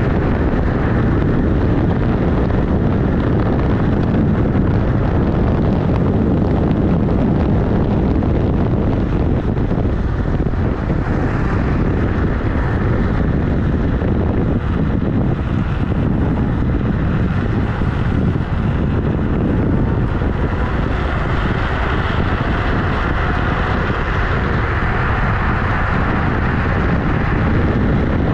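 Steady wind noise on the microphone and tyre rumble from a Kugoo G-Booster electric scooter riding along an asphalt road, its knobby tyre running close by.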